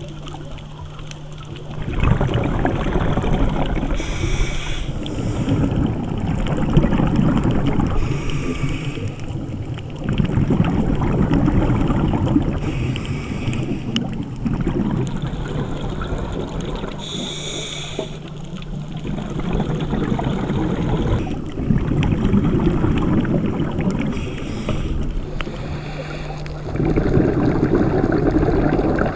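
Scuba diver breathing through a regulator underwater: a brief hiss on each inhale and a longer burst of rumbling exhaust bubbles on each exhale, repeating every four seconds or so.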